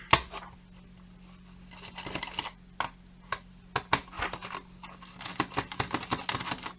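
Small screwdriver working the screws out of a Gotek floppy emulator's plastic case: a sharp click right at the start, then scattered light clicks and scratchy scrapes of the tool and case being handled.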